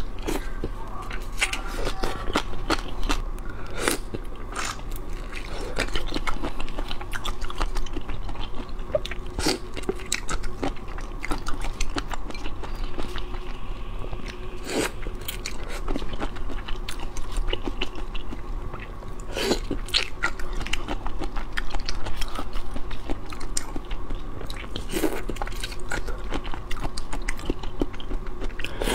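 Close-miked mouth sounds of eating: wet biting and chewing of headless peeled shrimp in spicy marinade and of crunchy gongcai stems, with many short crunches and clicks throughout.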